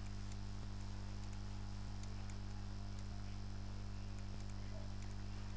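Steady low electrical hum, mains hum picked up by the recording, with faint ticks at even spacing a little over a second apart.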